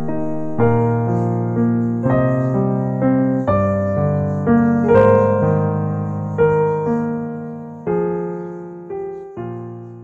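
Background piano music: slow notes and chords, each ringing out, the playing dying away near the end.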